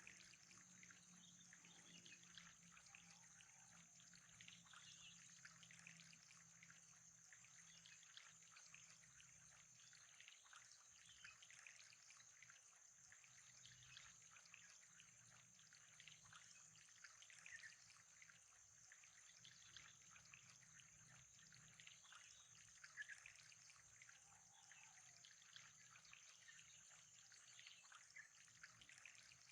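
Faint, steady trickling water with a thin high hiss over it.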